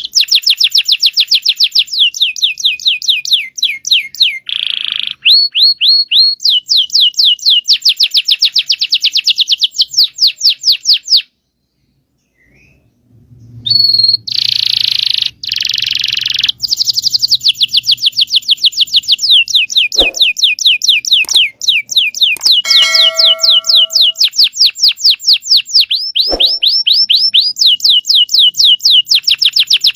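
Domestic canary singing long, rolling trills of rapidly repeated high notes. The song breaks off for about two seconds near the middle, then resumes.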